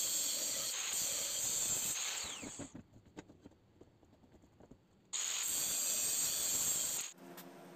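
Angle grinder's abrasive disc cutting through a steel pipe, a steady high-pitched grinding. The cut stops about two and a half seconds in and the disc winds down with a falling whine, followed by light metallic clicks and knocks as the pipe is shifted in a screw clamp. The grinder cuts again from about five seconds in until about seven seconds in.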